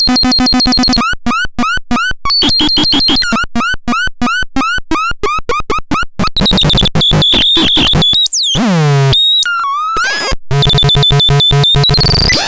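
Electronic synthesizer making bird-like chirps: fast stuttering blips, then a run of short chirps rising in pitch about two a second. About two-thirds of the way through comes a sweep of gliding tones, and near the end a dense burst of rapid pulses.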